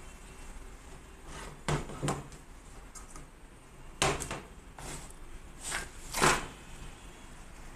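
Handling noises on a desk: a series of short knocks and rustles, the loudest near the end as a clear plastic bag is grabbed and crinkles.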